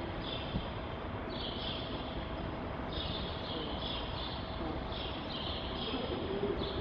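Steady background noise of an old recording: hiss with a faint steady hum, and soft higher hiss that comes and goes. No distinct event stands out.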